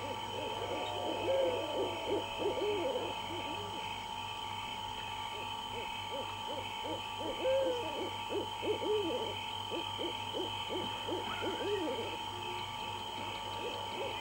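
Night-time animal sounds: many short calls, each rising and falling in pitch, repeated irregularly over a steady high-pitched chirring.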